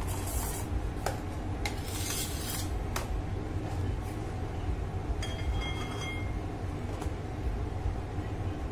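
A metal palette knife scrapes and smooths whipped cream on a cake, with scattered light clicks and scrapes as the blade and hands touch the cake turntable. A steady low rumble runs underneath.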